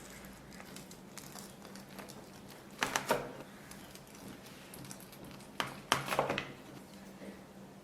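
A knife cutting a block of steamed glutinous rice cake into pieces, with a few short knocks of the blade. The knocks come in two small groups, about three seconds in and again near six seconds.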